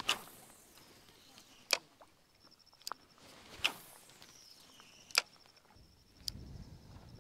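Sharp clicks and taps, about six of them a second or so apart, from an angler walking a dirt shoreline path and handling a fishing rod. A faint high trill sounds in the background, and a low rustle of movement comes in near the end.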